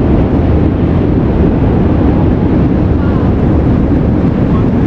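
Wind buffeting the microphone outdoors: a loud, steady low rumble with no break.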